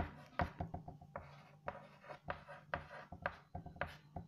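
Chalk writing on a blackboard: an irregular run of short taps and scratches as numbers are written.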